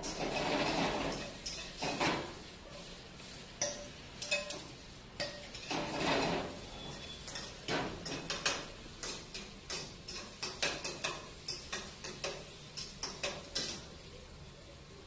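Metal spatula scraping and clinking against a wok: a few longer scrapes, then a run of quick clinks, about three a second, that stops near the end.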